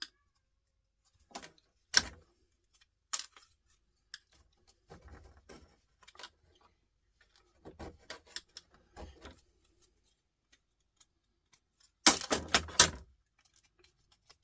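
Scattered clicks, knocks and rattles of plastic and metal printer parts being handled and pried apart while a board is taken off. A louder burst of rattling comes about twelve seconds in.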